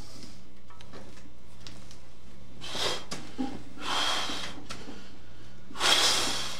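A powerlifter's forceful bracing breaths, three in the space of about four seconds, the last the loudest, as he sets up on the bench under a heavy barbell before the lift-off. A steady low hum runs underneath.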